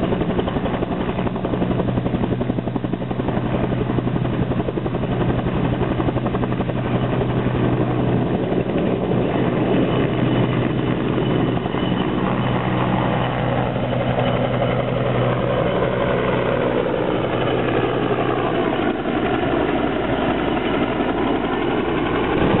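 Helicopter lifting off and departing: a steady rotor and engine sound at first, then from about halfway through a sweeping shift in pitch as it climbs away and passes overhead.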